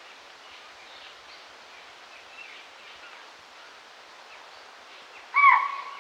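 Spotted deer (chital) giving one sharp alarm call near the end, a short shrill hoot that dips and then holds briefly. Underneath, faint forest background with small birds chirping.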